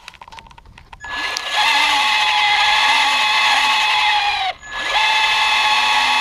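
Traxxas Slash 2WD RC truck's electric motor and drivetrain running at a steady speed with a high whine. It comes in about a second in, drops out briefly, then runs again. The drivetrain has a squeak that the owner needs to track down.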